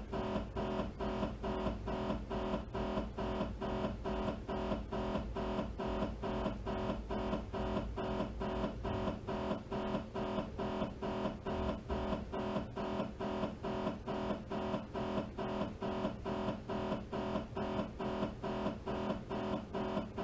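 MRI scanner running a T2-weighted axial sequence: the gradient coils buzz in a steady beat of pitched pulses, about two a second. A low hum underneath fades out about halfway through.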